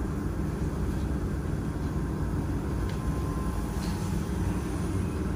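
Steady low hum and rumble of a laser welder's water chiller running, its cooling fan turning.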